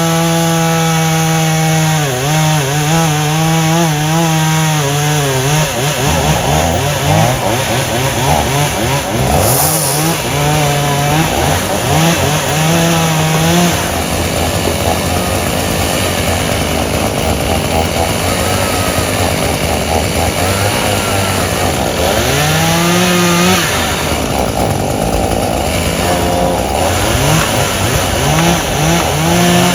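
Chainsaw cutting into an oak tree, its engine note sagging under load in the cut and climbing back as it revs, again and again.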